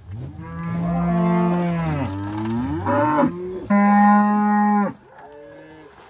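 Cattle mooing: a string of long moos, one sliding in pitch, the loudest and steadiest coming about two-thirds of the way in, then a fainter moo near the end.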